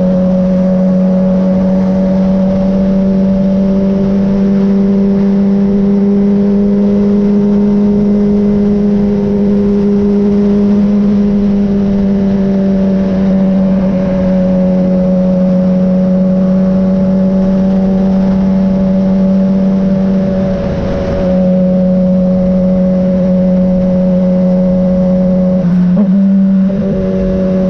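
Sport motorcycle engine running at a steady cruising pitch, heard from the rider's seat with wind noise underneath. The tone briefly breaks twice in the last third, the second time near the end.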